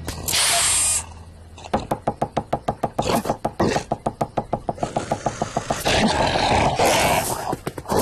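Cartoon sound effects: a brief hiss, then a fast run of knocks, about eight a second, for some three seconds and fading, then a rough rasping noise of over a second.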